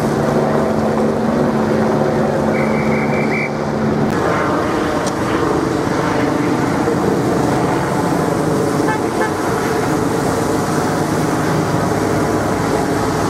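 Motorcade vehicles passing on a wet road: police motorcycle and car engines, then a steady hiss of tyres on wet tarmac as the cars go by. A short high beeping sounds about three seconds in.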